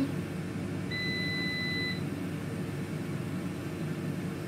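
COSORI TwinFry air fryer giving one steady electronic beep about a second long, starting about a second in, over the steady whir of its fan during the cool-down phase after grilling.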